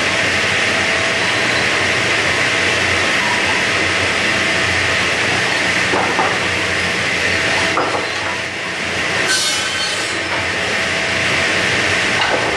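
Large power saw running steadily as it cuts lumber, with a brief burst of noise about nine seconds in.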